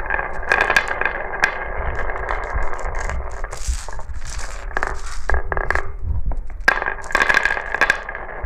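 Glass marbles rolling and clattering down a marble run: a continuous rolling rattle broken by many sharp clicks and clinks, over a steady ringing tone.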